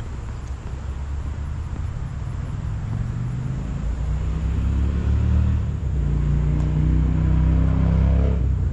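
Car engine and road noise while driving, the engine pulling harder and rising slightly in pitch over the last few seconds as the car speeds up.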